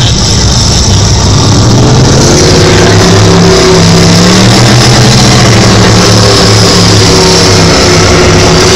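Offshore racing powerboats running at speed, their big engines giving a loud, deep drone that rises slightly in pitch two or three seconds in and then holds steady, over a constant rush of noise.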